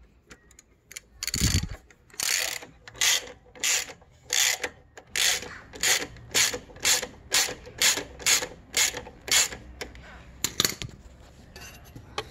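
Socket ratchet wrench clicking through a run of strokes, about two a second and speeding up slightly, as a nut is backed off the mounting bolt for a motorcycle crash protector. One single sharper click comes near the end.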